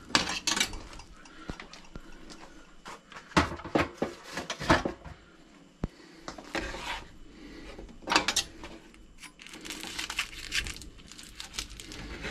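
Metal carving fork and knife clinking and scraping against a wooden chopping board, with scattered knocks and one sharp click about halfway, as a cooked chicken leg is lifted onto the board and cut open.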